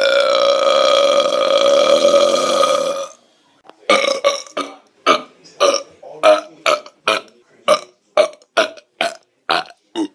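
A person burping on command: one long, drawn-out belch held at a steady pitch, ending about three seconds in. After a short pause comes a rapid string of short burps, about two to three a second.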